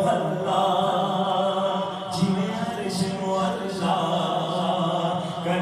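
A man's voice singing a naat, Islamic devotional poetry in praise of the Prophet, unaccompanied into a handheld microphone, in long sustained lines that bend in pitch.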